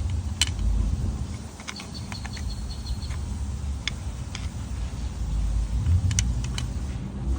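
Dodge Ram 1500 engine idling low after a rev, with scattered sharp ticks and clicks over the rumble; the noise is put down to the timing chain.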